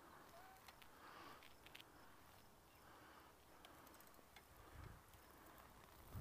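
Near silence: faint outdoor background with a few faint ticks.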